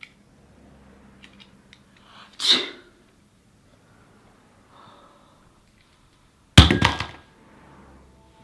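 A person sneezing once, then about four seconds later a loud sudden thud followed by a brief clatter.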